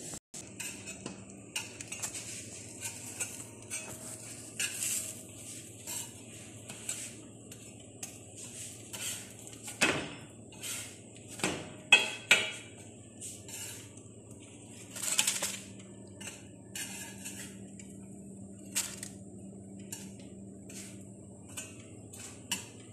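A metal spatula scraping and clacking on a large flat metal griddle as pieces of mutabak bread are turned and shifted, in scattered strokes. The sharpest clacks come about ten, twelve and fifteen seconds in, over a faint steady hum.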